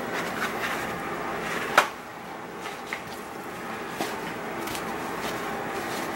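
Handling sounds at a kitchen cutting board: one sharp knock a little under two seconds in, then a couple of lighter clicks, over steady kitchen background noise, as a paper towel is handled and wrapped around a fish's tail.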